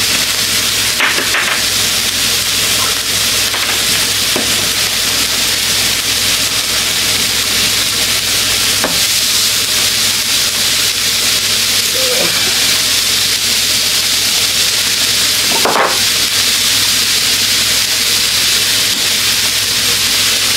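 Burger patties frying with a steady sizzle, plus a few light clicks and rattles from seasoning shakers.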